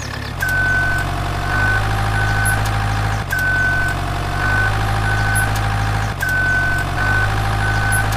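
Looped truck engine idling sound effect with a high beep pattern over it, one long beep followed by two short ones, repeating about every three seconds.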